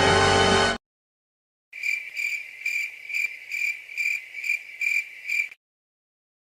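A piece of music cuts off abruptly just under a second in. After a short silence comes the stock crickets-chirping sound effect: one cricket's high, even chirps, about two a second for roughly four seconds, the effect editors use to mark an awkward silence.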